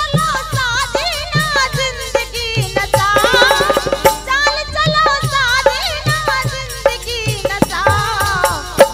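Bundeli rasiya folk song performed live: a woman singing with vibrato over harmonium, a dholak drum beating a steady rhythm, and a rattling hand percussion.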